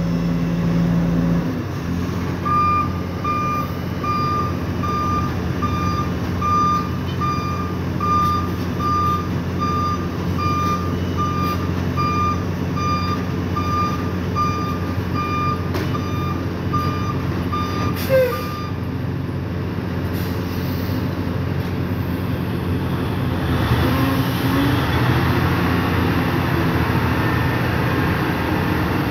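Dump truck's diesel engine running with its reversing alarm beeping steadily, about one beep every 0.7 s, as it backs up to an asphalt paver. The beeping stops about 18 s in with a brief loud burst, and the machinery grows louder and rougher near the end.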